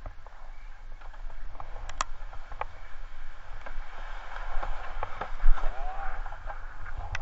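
Skis scraping and sliding over packed snow while skiing down a chairlift unload ramp, with wind buffeting the helmet camera's microphone and scattered sharp clicks from skis and poles knocking.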